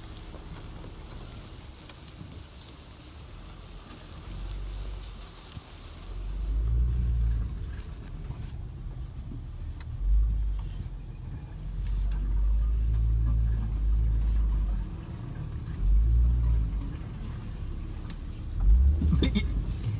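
Low rumble of a vehicle driving slowly over a rough forest track, heard from inside the cab, swelling several times in bursts of a second or more.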